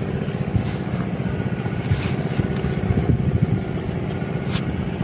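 A small engine running steadily: a continuous low drone with a faint steady whine above it, and one sharp click near the end.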